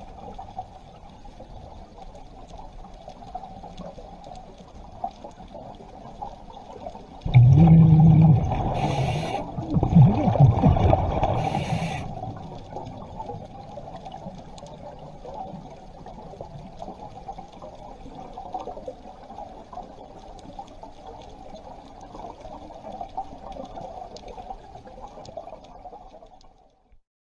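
Underwater sound of a scuba diver breathing through a regulator: a steady low background noise, with a loud gush of exhaled bubbles starting about seven seconds in and lasting about five seconds, with two short hisses within it.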